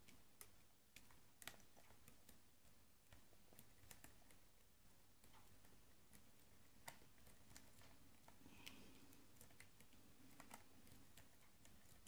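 Faint, scattered clicks of a hook pick working the serrated key pins of a brass American padlock held under a tension wrench, with a few sharper clicks about 1.5, 7 and 10.5 seconds in.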